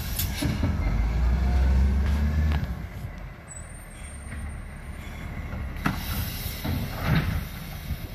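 Side-loader recycling truck's diesel engine running heavily for the first few seconds, then dropping to a quieter idle. A sharp clunk about six seconds in and a clattering burst about a second later, from the truck's bin lifter working a bin at the kerb.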